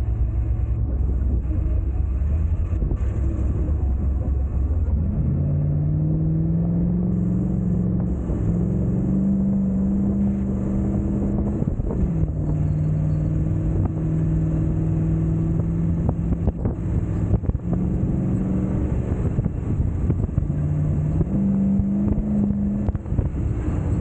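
Off-road vehicle's engine running as it drives through soft sand, over a constant low rumble. From about five seconds in, the engine note rises and falls several times with throttle and gear changes.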